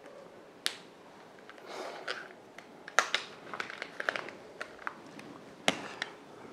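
Whiteboard markers handled in the hands: three sharp clicks, about a second in, three seconds in and near the end, with smaller ticks and soft rustling between them.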